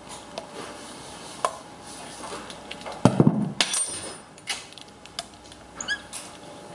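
Metal clinks, clicks and knocks of a compression tester's hose and fittings being handled against a bare diesel cylinder head, with a heavier knock and a run of clinks about three seconds in.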